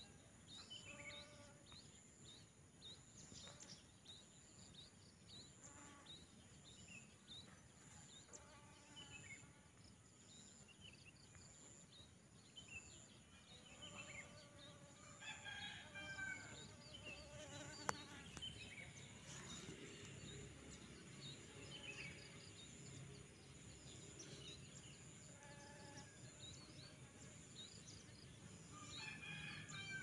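Faint rural ambience: chickens clucking and a rooster crowing in the distance, with small birds chirping. A single sharp click stands out near the middle.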